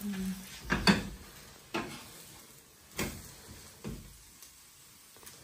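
A flat spatula scraping and knocking on a tawa griddle as a besan chilla is worked in the pan, four short strokes about a second apart, the first the loudest.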